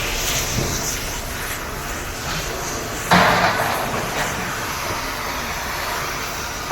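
Scrapping of used air conditioners: steady clattery workshop noise with one sudden loud strike about three seconds in, fading over about a second.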